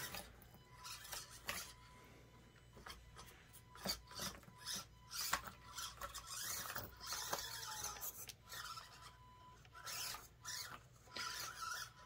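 Axial SCX24 Deadbolt 1/24-scale RC crawler working its way over rough obstacles: its tyres and chassis scrape and rasp in short, irregular bursts with small clicks, over a faint steady high whine.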